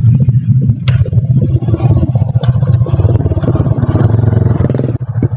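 Small underbone motorcycle engine running close by as the bike, loaded with oil palm fruit bunches, rides down a slope. The low pulsing of the engine's firing is the loudest sound throughout.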